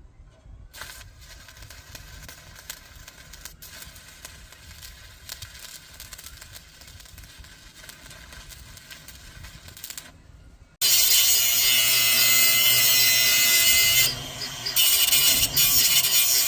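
Stick welder arc crackling and sizzling as a 6013 rod burns. About eleven seconds in, a much louder power tool takes over, running steadily with a short dip part way through.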